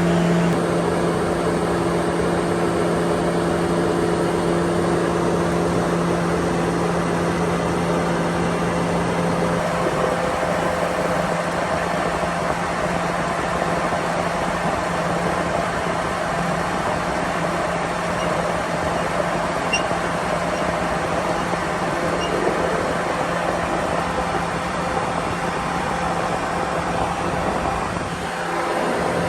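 Planer machinery running: a steady motor hum over a continuous whirring noise. The hum fades about ten seconds in, and the sound dips briefly near the end.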